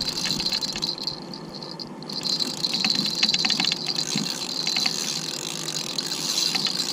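Penn Battle 5000 spinning reel being cranked, a steady gear whir with rapid small clicks, as a small striped bass is reeled in on the line. The cranking stops for about a second, starting about a second in, then resumes.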